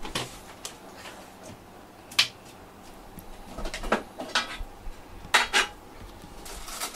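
A series of light, sharp clicks and taps at irregular intervals, the loudest about two seconds in and two close together near five and a half seconds.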